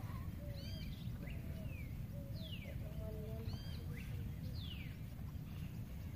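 Wild birds calling outdoors: a phrase of short arched high notes followed by a falling slurred note, given twice, with a lower wavering call alongside. A steady low rumble runs underneath.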